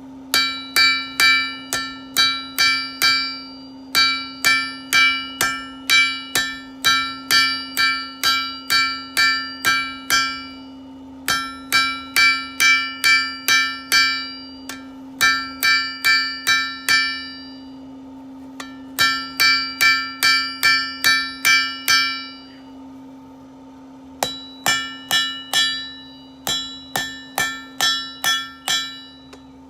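Hand hammer striking hot steel bar on an anvil, each blow ringing like a bell, about two to three blows a second in runs of several seconds broken by short pauses: the bar is being forged from round to square and back to round to give it a hammered finish. A steady low hum runs underneath.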